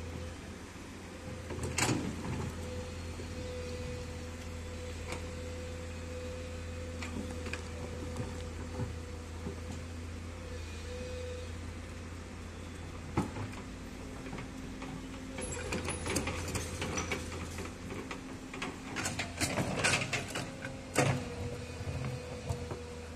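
Komatsu hydraulic excavator working: a steady engine drone with a hydraulic whine as the boom and bucket move, a few sharp knocks, and a stretch of clattering and scraping of soil and stones near the end.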